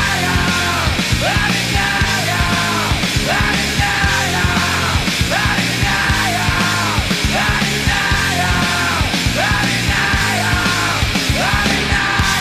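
Loud heavy rock music with drums, steady bass notes and repeated bending melodic phrases.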